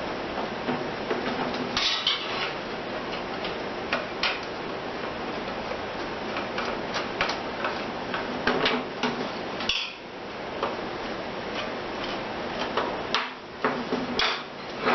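Scattered small clicks and light metal clinks from hand work on sheet-metal engine parts with a Phillips screwdriver, over a steady hiss.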